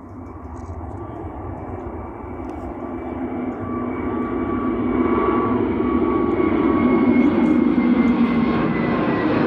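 Airbus A321neo's Pratt & Whitney geared-turbofan engines at takeoff power as the jet lifts off and climbs out, a jet rumble with a steady whine in it, growing steadily louder as it approaches.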